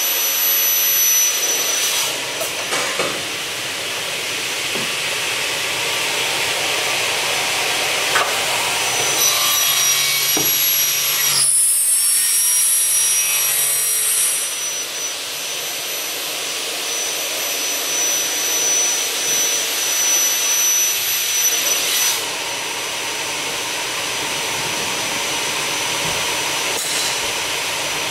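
Gamma Swing Digit CNC double-head cut-off saw running on automatic, its carbide-tipped blades spinning with a steady high whine over a loud hiss. About ten seconds in the sound turns harsher and higher for four or five seconds as a blade cuts through aluminium extrusion.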